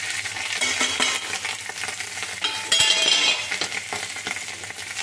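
Boiled potato pieces sizzling in hot oil in a kadai, with a steel spatula scraping and clinking against the pan as they are stirred.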